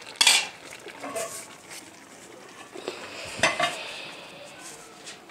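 Metal kitchenware clanking: a metal lid going onto a cooking pot and spoons clattering in a metal bowl. A loud clank comes just after the start and another cluster of clinks about three and a half seconds in.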